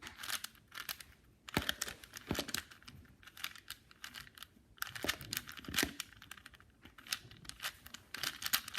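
Plastic 4x4 Rubik's cube being turned quickly by hand through the final parity algorithm, its layers clicking and clacking in several short flurries with brief pauses between.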